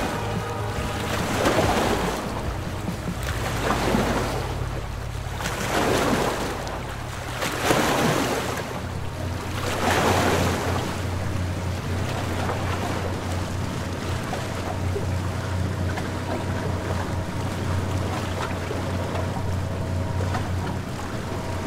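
Small motor launch under way on a river: water rushing along the hull and wind on the microphone, swelling about every two seconds for the first ten seconds and then settling, over a steady low motor hum.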